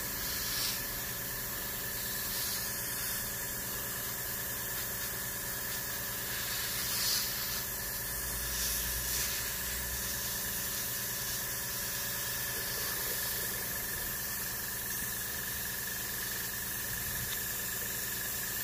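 Gravity-feed Harder & Steenbeck airbrush spraying primer: a steady hiss of compressed air, surging briefly a few times as the trigger is worked.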